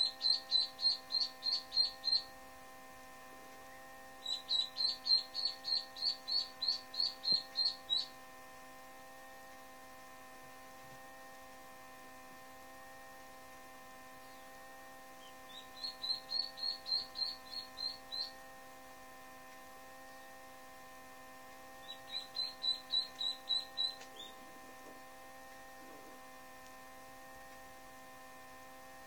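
Indian Runner/Khaki Campbell cross duckling peeping in four quick bouts of high, evenly spaced peeps, about five a second, with pauses between bouts. A steady electrical hum runs underneath.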